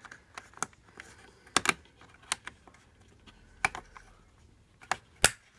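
Small plastic clip tabs clicking and tapping against a window blind's headrail as they are pressed up and over it: a scattered string of sharp clicks at uneven spacing, the loudest near the end as a tab snaps into place.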